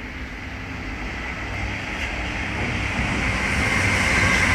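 A train approaching, its rumble growing steadily louder, with a high steady whine coming up near the end.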